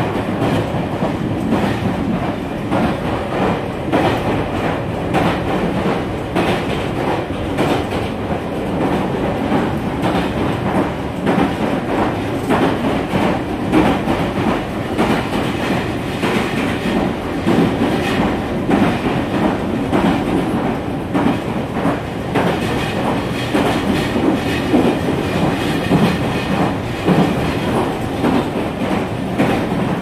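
Meitetsu 5000 series electric train running at speed, heard inside the passenger car: a steady rumble of wheels and running gear with frequent clicks as the wheels cross rail joints. Its running sound is that of the older 1000 series Panorama Super.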